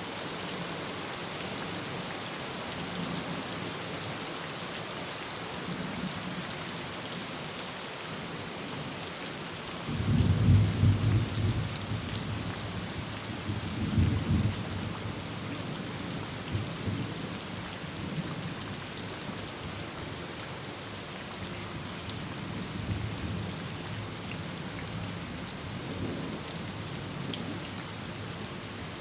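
Heavy rain drumming steadily on a tin roof. About a third of the way in, a loud clap of thunder breaks in suddenly. It swells again a few seconds later, then rolls away into fainter rumbles.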